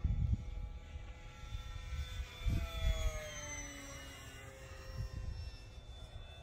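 Electric motor and propeller of a HobbyKing Tundra V2 RC bush plane whining in flight, the pitch sliding down midway as the plane flies past. Gusts of wind rumble on the microphone now and then.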